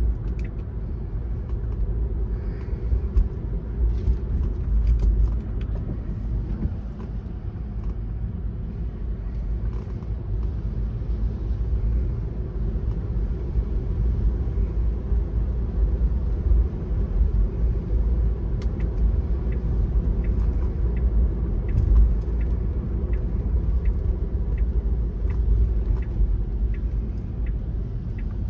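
Steady low rumble of a car driving on wet city streets, heard from inside the cabin: engine and tyre road noise, with a few faint ticks.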